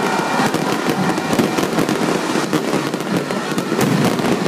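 Fireworks barrage going off close by: a rapid, continuous crackle of many small bangs with no pause.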